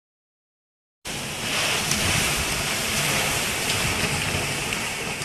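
After about a second of silence, hurricane wind and driving rain start suddenly: a loud, steady rush of noise with a few sharp ticks scattered through it.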